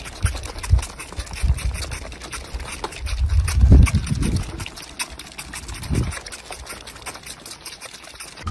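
Goat kids sucking on feeding bottles: a rapid run of wet smacking and slurping clicks, over low muffled thumps that are heaviest about three and a half seconds in.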